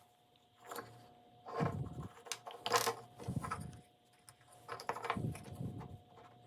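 Workshop handling sounds: several irregular knocks, clinks and short scrapes of wooden pieces and tools being set down and moved about.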